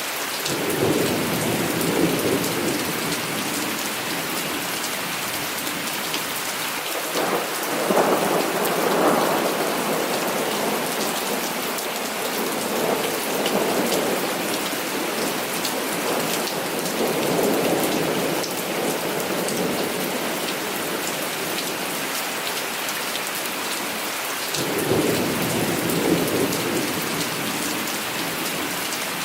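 Heavy rain falling steadily, with several rolls of thunder rumbling over it. The strongest roll comes about a quarter of the way in, and another starts abruptly near the end.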